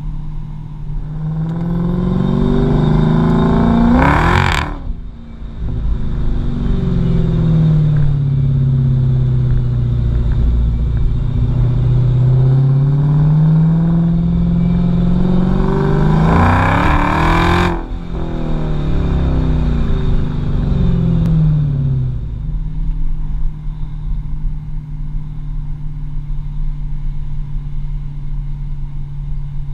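Dodge Challenger SRT Hellcat's supercharged 6.2-litre HEMI V8 revving hard under acceleration. Its note climbs to a loud peak about four seconds in and again about seventeen seconds in, drops away sharply after each, then runs steady at lower revs near the end.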